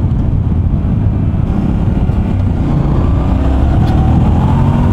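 Yamaha Ténéré 700's 689 cc parallel-twin engine running under way with a rushing noise of wind and road; from about two seconds in its note rises steadily as the bike accelerates.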